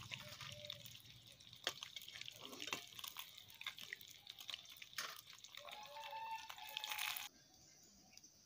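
Fish pieces frying in hot oil in a wok over a wood fire: a steady sizzle with scattered pops and crackles, which stops abruptly about seven seconds in.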